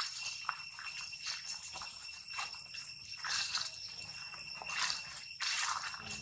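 Irregular crunching and rustling of footsteps through dry leaf litter, over a steady high-pitched ringing drone.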